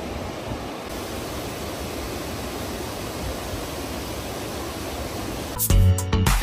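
Steady rush of a mountain river running over rocks in rapids. Near the end, loud music with a deep bass line cuts in abruptly and drowns it out.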